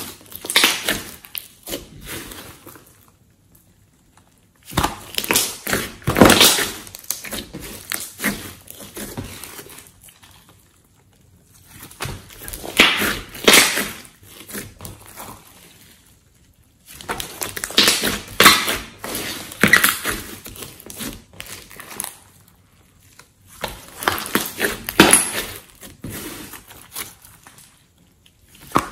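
A large batch of glossy slime being squeezed, folded and stretched by hand: sticky squishing with many small pops of trapped air, in about five bursts separated by short pauses.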